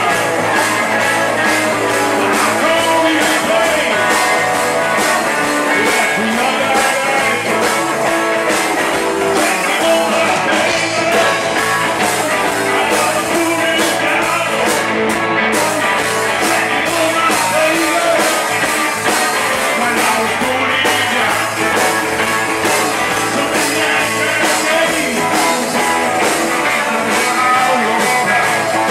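Live blues-rock band playing: electric guitars over drums, with a singer's voice.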